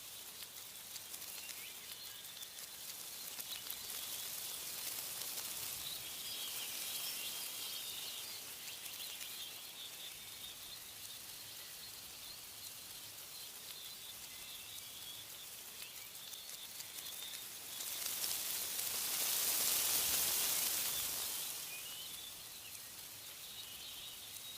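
Wind rushing through tree leaves in gusts, swelling twice, most strongly near the end, under a steady background of small birds chirping.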